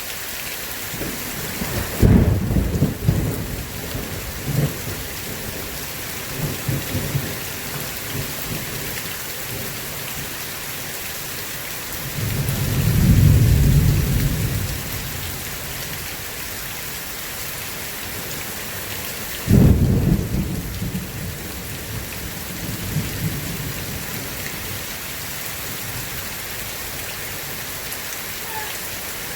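Steady heavy rain with three claps of thunder. The first breaks sharply about two seconds in and rumbles on for a few seconds. A slower rumble swells and fades around the middle, and another sharp clap comes about two-thirds of the way through.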